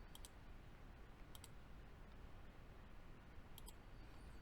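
Computer mouse clicking: three quick pairs of faint clicks over low room hiss.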